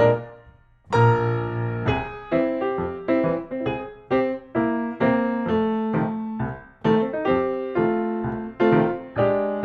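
Background piano music: chords and notes struck one after another, each dying away, after a short pause about a second in.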